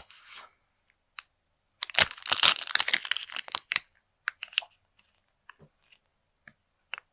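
Clear plastic bag crinkling as it is handled: a dense burst of crackling for about two seconds, then a few scattered crackles.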